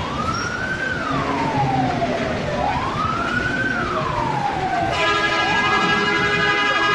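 Emergency-vehicle siren in a slow wail, rising over about a second and falling over about two, three times over steady street noise. A steady buzzing tone joins about five seconds in.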